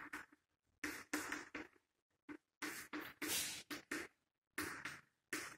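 Chalk writing on a blackboard: about ten short strokes in quick succession with brief pauses between them.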